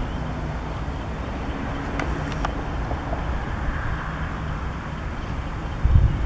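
Diesel shunting locomotive engine running steadily at low revs, with two short sharp clicks about two seconds in and a buffet of wind on the microphone near the end.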